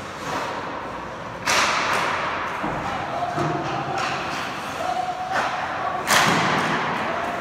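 Two sharp cracks of hockey pucks being shot, about a second and a half in and again near the end, each echoing through the ice rink.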